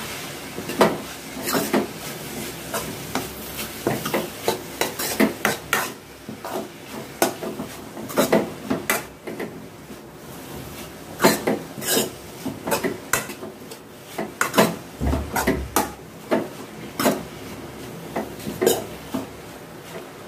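Long steel spoon stirring grated carrot and coconut in a metal kadai, scraping the pan and clinking against its rim at an irregular pace.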